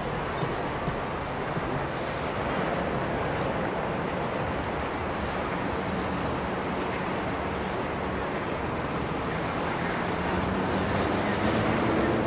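Steady wind and water noise on the river, with a faint low boat-engine hum that grows a little louder near the end.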